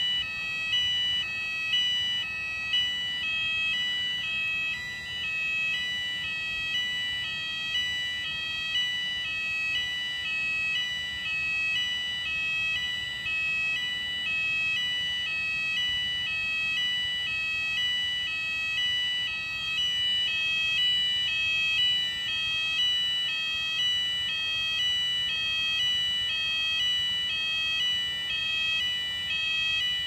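Building fire alarm sounding continuously during a weekly alarm test: a steady high electronic tone with a second tone switching back and forth in an even, repeating pattern.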